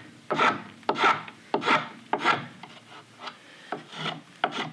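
A hand edge tool shaving green sycamore wood in short, quick, scraping strokes, about one and a half a second, with a few softer strokes in the middle.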